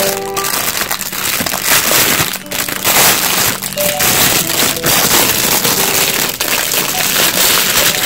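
Clear plastic wrapping crinkling as a bundle of bamboo utensils is handled and unwrapped, a dense crackle with many irregular sharp crackles, over soft background music.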